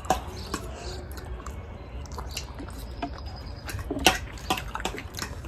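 People eating noodles with forks: chewing, with scattered light clicks of forks on plates, the sharpest about four seconds in, over a low steady hum.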